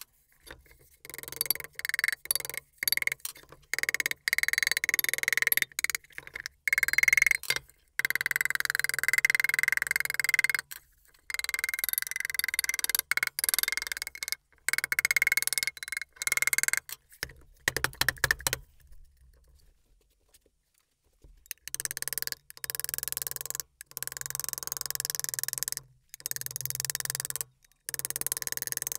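Hammer blows on the sheet-metal outer housing of a Lyman Moldmaster lead casting pot as it is straightened over a form: a long run of ringing metallic strikes, with a pause of about three seconds past the middle.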